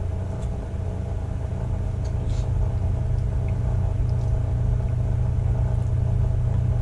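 Steady low hum, with a few faint clicks of a metal spoon against a steel pot.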